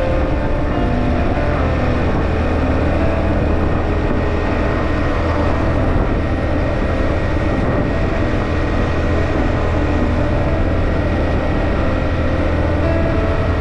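Steady engine and road noise from a motorbike riding along a highway, a continuous low drone with no change through the stretch.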